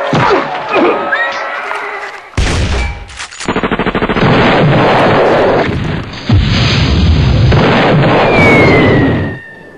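Battle sound effects of gunfire and explosions: scattered cracks, then a rapid rattle of automatic fire about three seconds in, giving way to a long, loud, dense barrage. Near the end comes a falling whistle.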